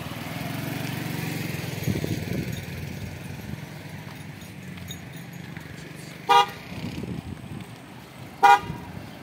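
Vehicle horn tooting twice, two short beeps about two seconds apart, over the low sound of an engine running.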